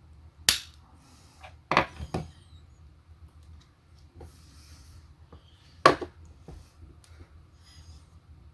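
Hard plastic parts of a power bank and tools being handled during disassembly: sharp knocks and clicks, one about half a second in, a quick cluster near two seconds and another loud knock near six seconds, with softer rubbing and clicks between.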